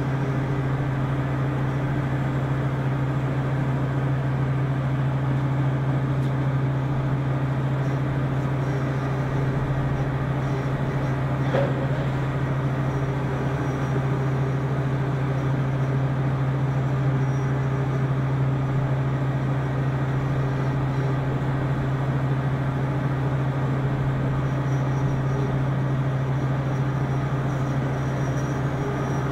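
Spinner U-620 CNC machining centre running: a steady low hum with a faint high whine over it, and one small click about twelve seconds in.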